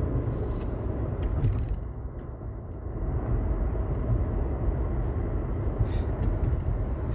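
Low, steady rumble of a car heard from inside its cabin, easing off briefly about two seconds in.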